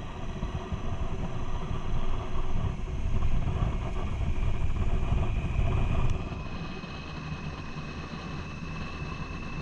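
Motorcycle on the move, heard from the rider's camera: engine and road noise with wind buffeting the microphone, getting louder over the first six seconds and then dropping suddenly, after which a steady thin high whine sits over quieter running.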